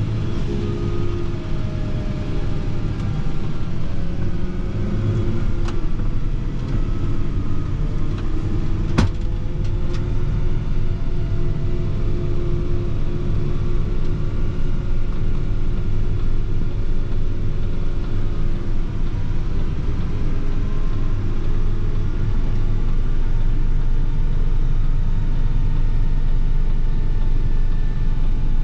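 Fendt 716 Vario tractor's six-cylinder diesel engine running steadily under load while it pulls a slurry tanker spreading through a trailing-hose boom, with a single sharp click about nine seconds in.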